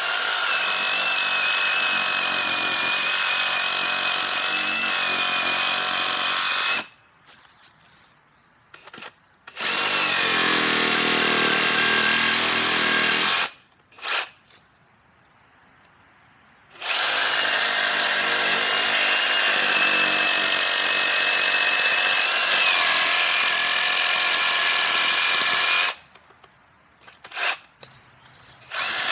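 Ryobi P517 18V brushless cordless reciprocating saw cutting into an oak trunk. It runs in three long runs of several seconds with short pauses between, a steady high whine over the buzz of the blade.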